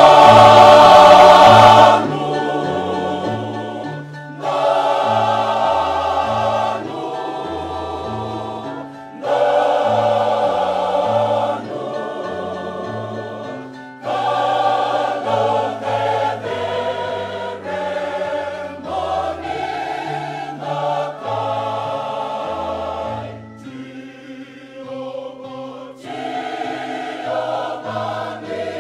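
A large mixed choir of women's and men's voices singing a hymn in parts, in phrases that swell loud and fall back, loudest at the very start and quieter near the end.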